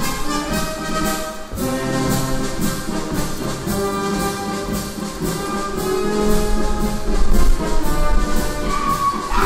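Brass band playing folk dance music with a steady beat.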